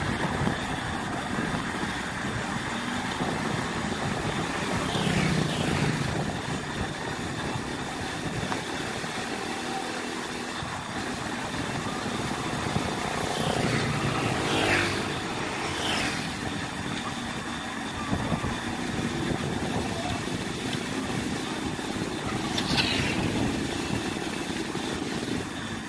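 Wind rushing over the microphone and road noise from a bicycle riding along a paved road, with motorcycles passing a few times.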